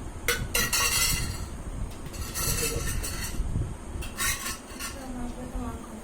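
Kitchen utensils and dishes clinking and scraping in several short bursts, as bowls and spoons are handled during food preparation.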